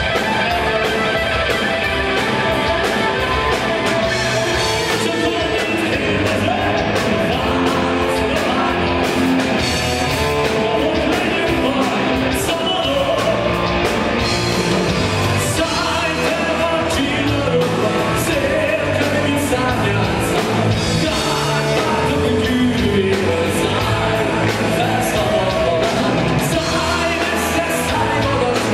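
Live rock band playing: a male lead singer over electric guitar, bass guitar, keyboards and a steady drum beat.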